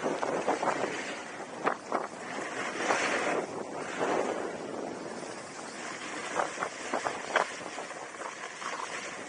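Skis sliding and carving on groomed, packed snow, a steady rushing scrape that swells on the turns, with a few sharp edge crackles, mixed with wind rushing over the microphone at skiing speed.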